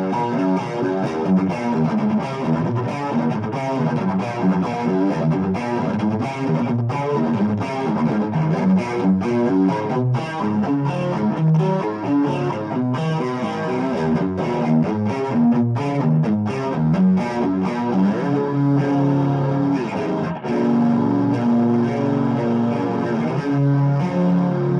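Electric guitar played through an EarthQuaker Devices Plumes overdrive pedal, with a mildly distorted tone: quick runs of single notes and riffs, giving way late on to longer held notes left to ring.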